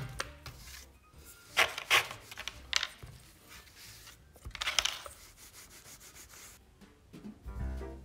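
Dough being pressed, turned and rolled on a floured plastic cutting board: several short rubbing and scraping strokes. Background music grows louder near the end.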